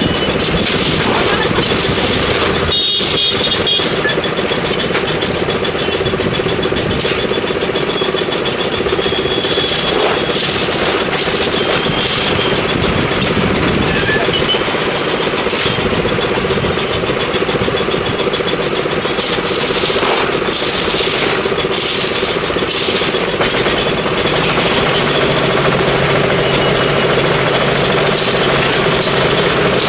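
An engine running steadily at a constant speed, with occasional sharp knocks or clanks over it.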